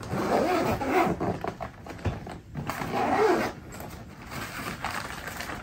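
Zipper on the nylon lining compartment inside a hard-shell suitcase lid being pulled, two rasping pulls with a wavering pitch, the second ending about three and a half seconds in.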